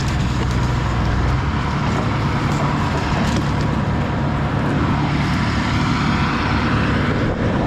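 Wood chipper's engine running steadily, with a few faint sharp clicks over it.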